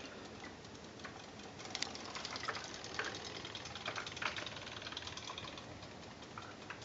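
Battery-powered Zuru Robo Fish toys swimming in a sink of water, their tail mechanisms making a faint, rapid, even ticking. A few louder clicks come between about two and four seconds in.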